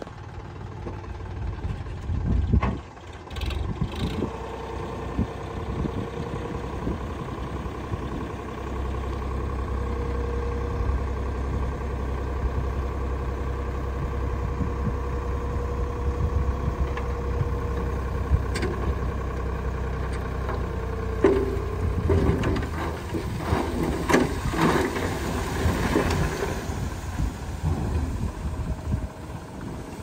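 Sonalika 42 DI RX tractor's diesel engine running steadily under load while its hydraulics tip up the loaded trolley. In the second half, soil and clods slide and tumble out of the raised trolley with scattered knocks and rattles.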